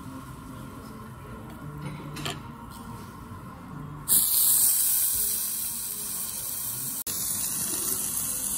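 Pieces of ground-beef hamburger steak sizzling on a hot cast-iron grill pot: a quiet table with a faint chopstick click, then a sudden loud sizzle about four seconds in as the meat is pressed onto the grill, going on steadily after that.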